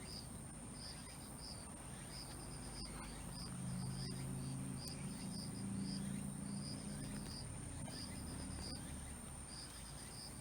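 Insects chirping in short repeated pulse trains, with a steady high-pitched insect drone behind them. A faint low hum swells up in the middle, and there are a few faint sharp clicks.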